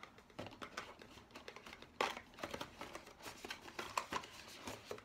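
A small cardboard box and the cardboard flaps of an advent calendar being handled. There is a string of soft, irregular scrapes, taps and rustles as the box is pulled from its compartment.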